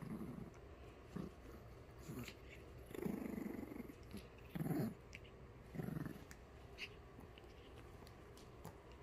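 Pomeranian puppy growling in play: a series of short, low rumbling growls, with a longer one about three seconds in.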